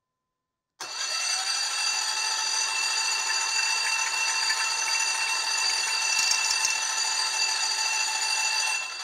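Electric starter motor spinning a Porsche 912 air-cooled flat-four engine whose pistons have no rings, a steady even whine as it pumps fresh oil through to build oil pressure. It starts abruptly about a second in.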